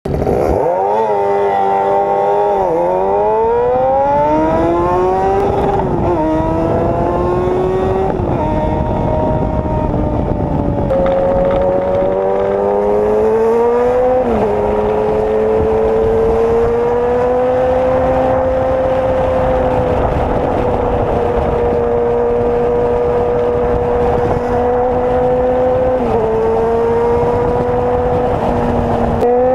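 Kawasaki Z800's inline-four engine pulling away and accelerating through the gears: about five upshifts in the first fifteen seconds, the pitch climbing in each gear and dropping at each shift. It then holds a steady cruise, with a small throttle change near the end.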